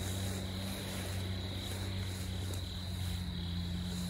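Steady chorus of insects calling in the grass, with a low steady hum underneath.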